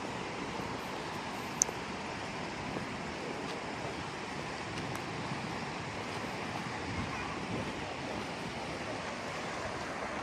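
Steady rush of a mountain stream swollen by rain, an even wash of water noise. A single short, high-pitched tick stands out about one and a half seconds in.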